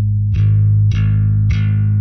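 Electric bass played through an MTI-era Ampeg SVT tube amp and 8x10 cabinet: one low note plucked three times, about half a second apart, each with a bright attack and ringing on. The amp's gain is raised a little by a loose patch cable plugged into its normal input.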